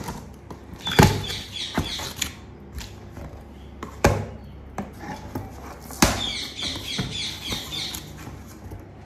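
Scissors cutting through packing tape on a cardboard box and the cardboard flaps being pulled open: scratchy rustling, short squeaks and a few sharp clicks, about one, four and six seconds in.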